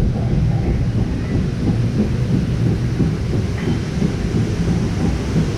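Steady low rumble and rush of water around a river-rapids raft ride.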